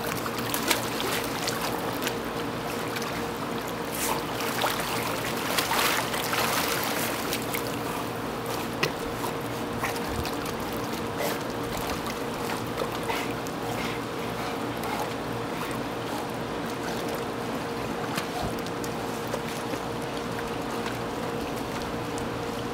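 Pool water splashing and lapping as golden retrievers swim and paddle about, with a cluster of sharper splashes in the first several seconds and calmer sloshing after. A steady low hum runs underneath.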